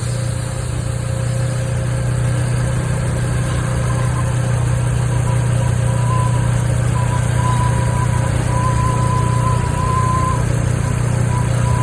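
Car engine idling steadily, with a thin, high-pitched whine from the PCV (positive crankcase ventilation) valve that comes and goes in short stretches from about halfway through.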